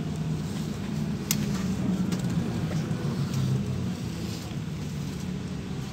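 Cabin sound of a LiAZ 5292.67 natural-gas city bus under way: a steady low engine drone with road noise. A couple of sharp rattles from the bus body come about a second and two seconds in.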